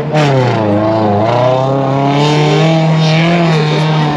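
Car engine revving hard under load on an off-road climb. Its pitch dips twice in the first second and a half, then rises slowly and holds high.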